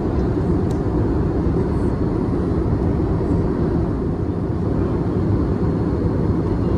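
Steady cabin noise inside an Airbus A320neo airliner: its Pratt & Whitney geared turbofans running together with rushing air, an even, deep rumble with no change.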